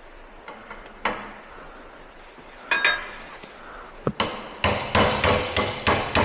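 Hammer striking steel: a few separate knocks, one ringing, then a rapid run of heavy blows from about halfway through.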